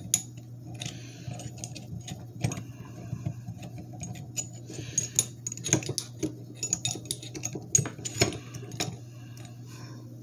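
Irregular light metal clicks and clinks of the steel jaws, bolts and adapter of a slide hammer's two-jaw puller attachment being handled and fitted onto the hammer's shaft.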